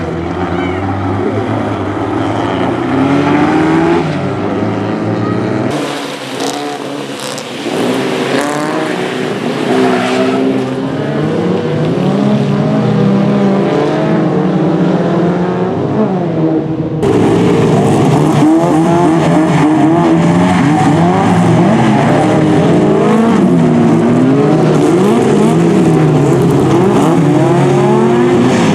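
Several folk-race cars' engines revving hard through a corner, their pitch climbing and dropping with throttle and gear changes as they pass. The sound changes abruptly about six seconds in and again about seventeen seconds in.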